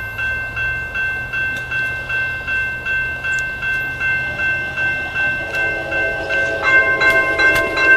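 Railroad grade crossing warning bell ringing in a fast, even rhythm of about three strikes a second, signalling an approaching train as the crossing gates come down. About five and a half seconds in, lower steady tones join and the sound grows louder.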